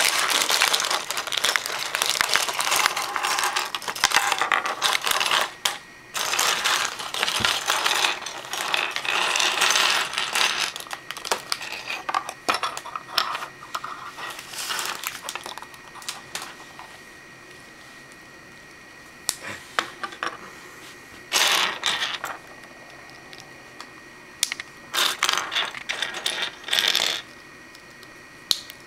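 Small hard plastic Lego Bionicle pieces clicking and clattering on a wooden tabletop as they are spread out and handled. Busy and continuous at first, then thinning to scattered clicks with a few louder rattling bursts in the second half.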